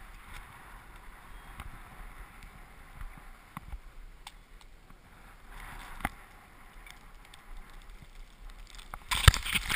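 Skis sliding and scraping over groomed snow at speed, a steady hiss with scattered sharp clicks and knocks, heard through a body-worn action camera. Near the end loud knocking and rubbing right on the camera take over.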